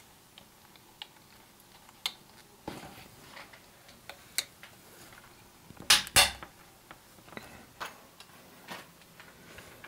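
Scattered plastic clicks and taps as no-drill clip brackets are pressed onto a window frame and a pleated blind is clipped into them, with two louder snaps close together about six seconds in.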